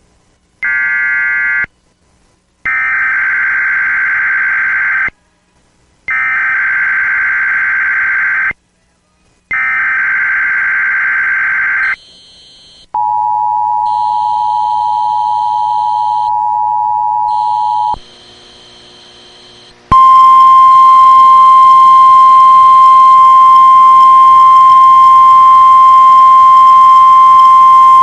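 NOAA Weather Radio alarm test tones. First come four raspy bursts of SAME digital header data, each about two seconds long. Then a steady two-note alert tone sounds for about five seconds, and about twenty seconds in a single loud, steady warning alarm tone begins and holds.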